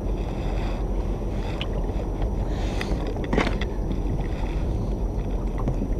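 Steady low rumbling noise aboard a small fishing boat, with a brief sharp click about three and a half seconds in.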